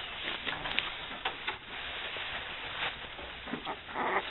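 Faint rustling with scattered light clicks and taps, and a louder rustle about four seconds in.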